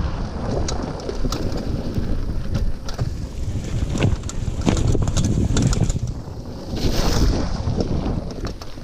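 Wind buffeting the microphone over the rumble of a mountain bike riding down a rough dirt trail, with frequent clicks and knocks from the bike. About seven seconds in there is a short hiss that fits the tyres splashing through water.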